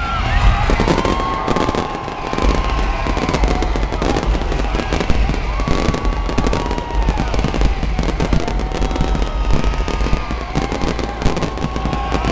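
Fireworks show going off overhead: a dense, unbroken crackle of bangs and bursts, with whistles that rise and fall over it again and again.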